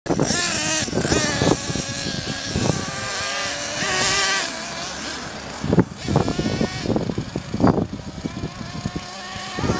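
Small nitro engine of an RC buggy running on the grass, its high-pitched whine rising and falling with the throttle. In the second half, gusts of wind rumble on the microphone.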